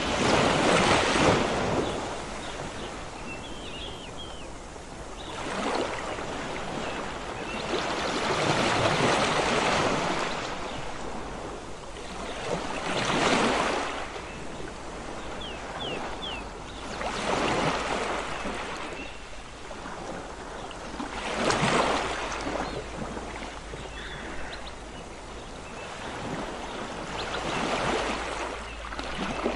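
Sea waves breaking on a beach, the surf swelling and fading in surges every few seconds.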